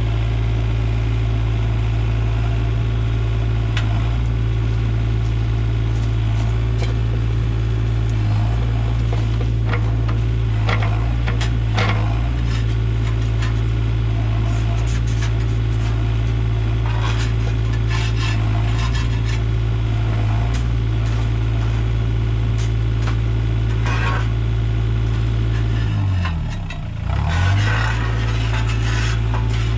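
Diesel engine of a working machine running steadily, with scattered knocks and clatters over it. About four seconds before the end the engine's pitch drops briefly and recovers, as if it were bogging under load.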